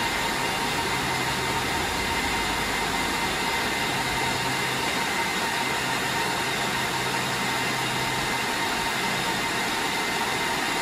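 Cooling fans of a rack-mounted Cisco UCS 6296UP fabric interconnect and HP ProLiant DL380p servers running steadily: a loud, even rush of air with a thin whine in it.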